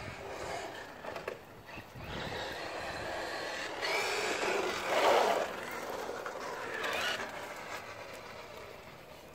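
Traxxas Maxx electric RC monster truck on a 3S battery driving on concrete, its motor whine rising and falling with the throttle over tyre noise. It is loudest about five seconds in, with another swell about two seconds later, then fades.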